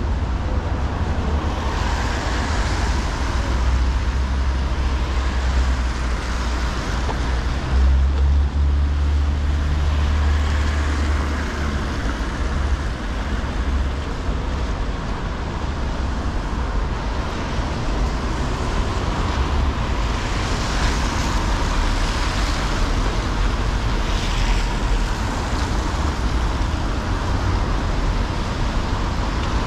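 City street traffic on rain-wet roads: cars passing with tyre hiss that swells several times over a steady low rumble.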